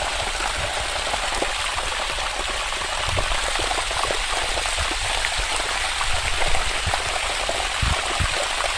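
Water gushing steadily from a pump-fed plastic outlet pipe and splashing onto a concrete slab, with a spattering of small splashes.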